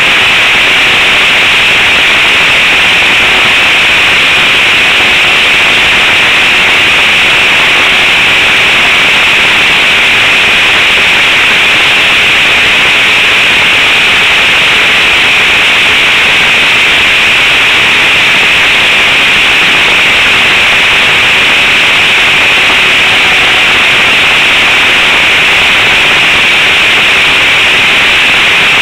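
Radio-control trainer plane's engine and propeller, recorded by a camera mounted on the plane. It makes a loud, steady buzzing hiss mixed with wind rush, and a faint engine note holds nearly level throughout.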